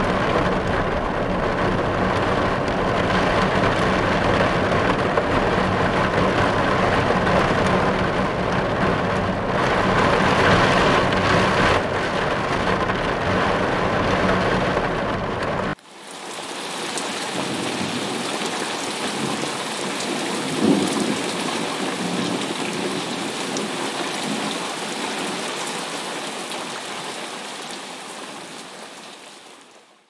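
Heavy rain drumming on a car's windshield, heard from inside the car with a steady low rumble under it. Just past halfway it cuts abruptly to heavy outdoor rain with thunder, including one brief loud crack about two-thirds of the way in, and the rain fades out near the end.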